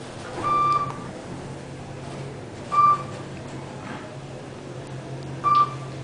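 Floor passing chime of a Kone KSS 600 EcoSpace elevator beeping three times as the car passes floors, a short electronic beep every couple of seconds, the first a little longer. It sounds pretty messed up. A steady low hum runs underneath.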